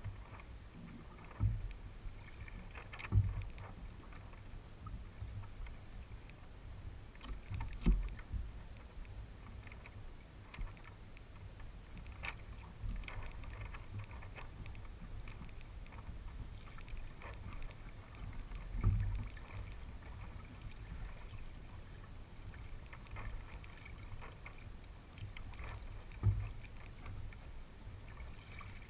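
Water sloshing and fizzing along the hull and outrigger of a Hobie Adventure Island sailing kayak moving slowly over calm water, over a steady low rumble. A few short low thumps stand out, like small waves slapping the hull.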